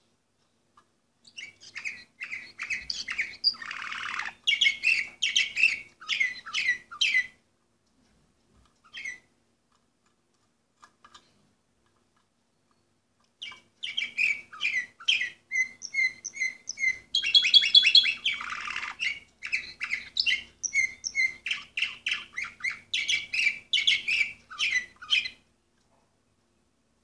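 Domestic canary of the Orpheus breed singing: a phrase of quick repeated notes and trills for about six seconds, a pause broken by a couple of short notes, then a longer song of rapid rolling trills lasting about twelve seconds.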